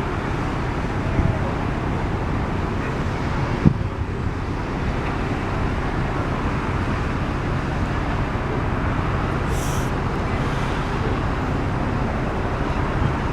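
Steady low engine rumble with a constant noisy wash, and a sharp knock about four seconds in.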